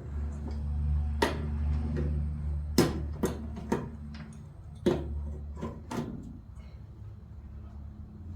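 Scattered sharp clicks and knocks of parts and hand tools being handled while stripping a car's engine bay, over a steady low hum.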